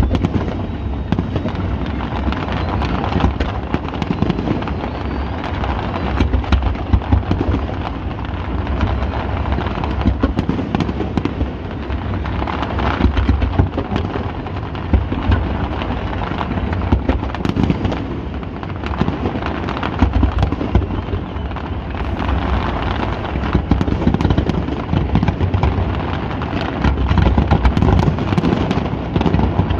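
Fireworks display going off without a break: a dense run of bangs and crackling over a constant low rumble, getting a little louder in the last few seconds.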